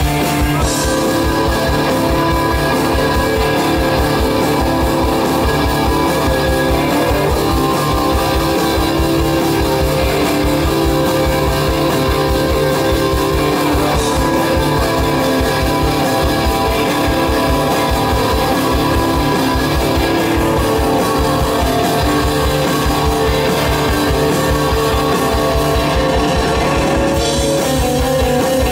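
Live rock band playing 1960s–70s-style fuzz psych rock: several electric guitars over a drum kit, loud and steady, with a fast, even drum beat.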